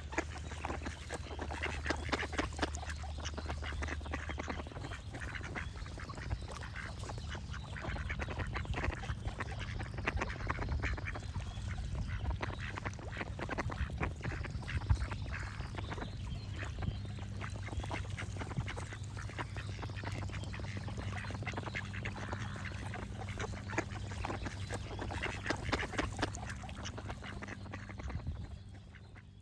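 Ducks quacking over and over in a dense run of short calls, over a low steady hum, fading out near the end.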